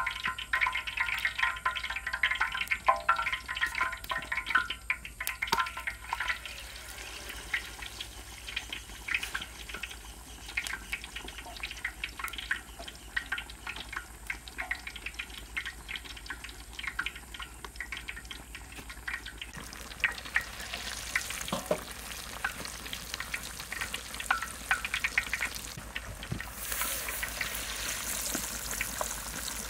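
Whole chickens deep-frying in hot oil in a wide wok: a steady sizzle dotted with small crackles. The sizzle grows louder and hissier in the second half.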